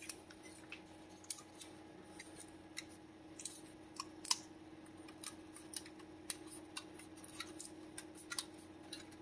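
Scattered small clicks and snaps from a freshly 3D-printed plastic part being handled and picked at by hand, over a faint steady hum.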